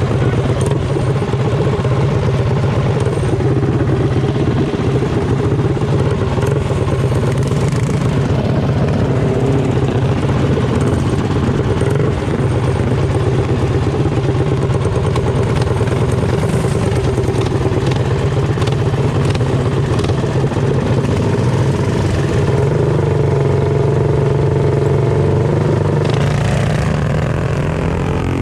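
Small mini bike engines running steadily, with the pitch shifting and sliding a couple of seconds before the end.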